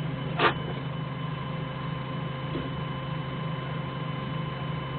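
Doosan 4.5-ton forklift engine idling with a steady low hum, and a single short click about half a second in.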